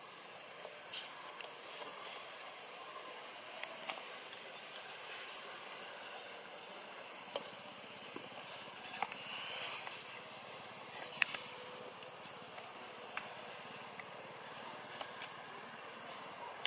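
Forest ambience: a steady high hiss with a thin, unbroken high tone, scattered light clicks, and one short high call falling quickly in pitch about eleven seconds in.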